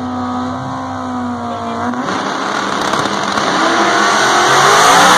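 Drag racing cars holding steady revs on the starting line, then launching about two seconds in: the engine noise turns to a dense roar that grows steadily louder, with the engine pitch rising as they accelerate down the track.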